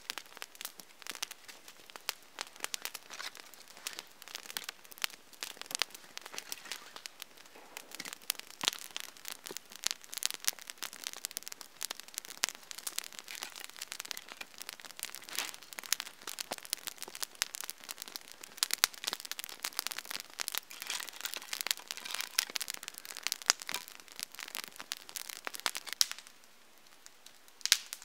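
Wood campfire crackling, with dense, irregular sharp snaps and pops from the burning sticks and logs. The crackle thins out near the end.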